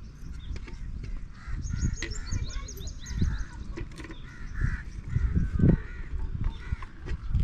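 Several birds calling, with a quick run of high chirps about two seconds in, over a low rumble and a heavier thump near the end.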